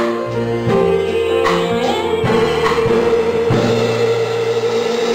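A woman singing into a microphone over instrumental accompaniment, holding one long note from about two seconds in.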